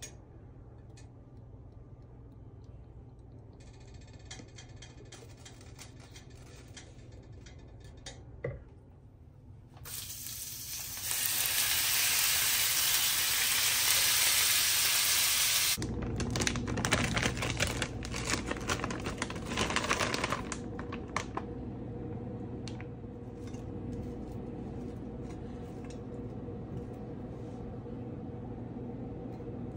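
Raw chicken pieces sizzling loudly in a hot frying pan, with a spatula scraping and stirring them. The loud sizzle cuts off suddenly partway through, and scraping clicks follow.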